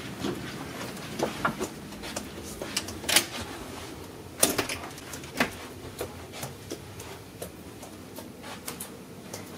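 Scattered clicks and knocks from a cabin door being handled, the loudest about three seconds in, with a few fainter ticks after.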